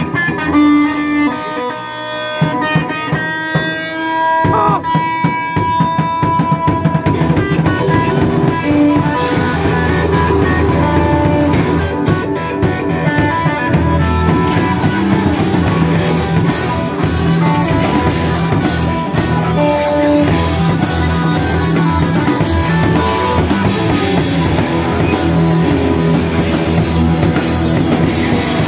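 Live rock band playing, with electric guitar and drum kit; held guitar notes open it, and the drums and cymbals get busier about halfway through.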